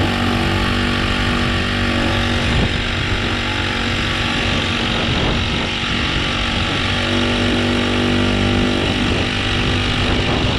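Honda GX35 35cc four-stroke, air-cooled engine on a kayak drive leg, running steadily under way and heard up close.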